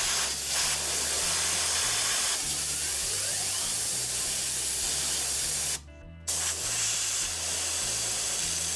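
A pressurised spray hissing loudly in two long bursts: one of about six seconds, then after a half-second break a second of about two and a half seconds.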